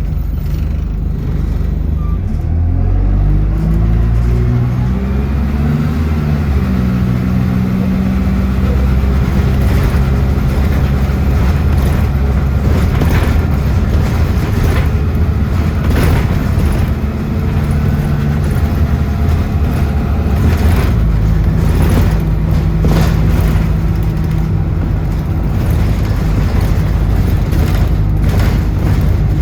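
Bus engine pulling away, its pitch climbing in several steps through the gears over the first few seconds, then running steadily at speed, with scattered short knocks and rattles.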